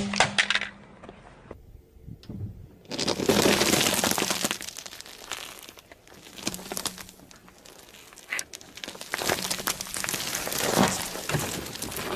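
Car tyre rolling over and crushing crunchy objects: bouts of crackling and crunching full of small cracks, loudest from about three to four and a half seconds in and again around ten to eleven seconds.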